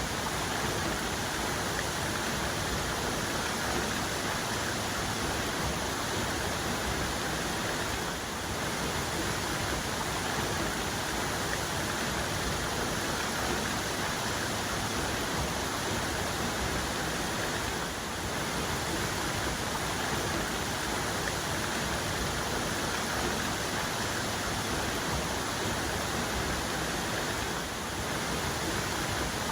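Waterfall cascade pouring steadily, a dense even rush of falling water.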